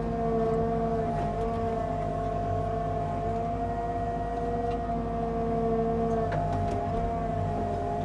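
Tracked excavator running steadily: diesel engine hum under a high, steady hydraulic whine.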